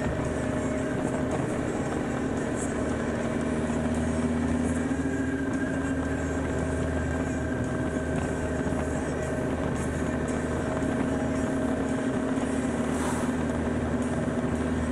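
BMW K1600 GTL motorcycle's inline six-cylinder engine running steadily at cruising speed, with wind and road noise around the bike; the engine note rises slightly about four seconds in.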